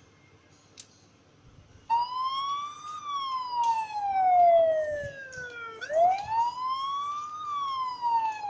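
Built-in alarm siren of an IPC306AX Wi-Fi camera alarm system going off because the armed PIR motion detector has been triggered. Starting about two seconds in, it sounds a wailing tone that rises briefly and then falls slowly, twice over.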